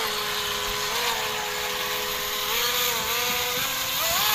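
Radio-controlled model boats running fast on the water: a high motor whine, with two motor tones side by side, whose pitch steps up and down as the throttle changes.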